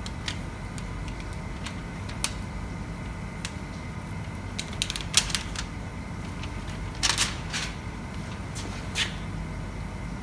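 Scattered light clicks and taps of hand work on motorcycle parts, loudest in a short cluster about seven seconds in, over a steady low hum.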